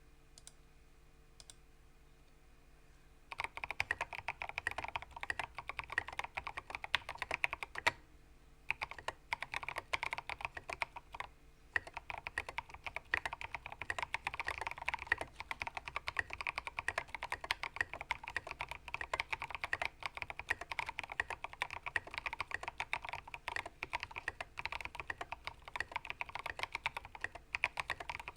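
Fast typing on a Ramaworks Kara mechanical keyboard with lubed and filmed switches and internal dampeners: a dense run of key clacks that starts about three seconds in, with brief pauses, after a quiet start.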